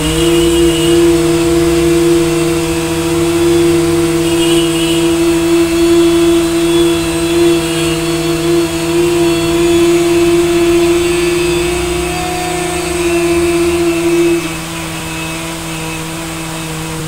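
Two people humming long, steady notes in bhramari pranayama, the yoga 'humming bee' breath done with the ears closed. A lower hum and a higher hum sound together. The higher one stops about 14 seconds in, and the lower one holds on until near the end.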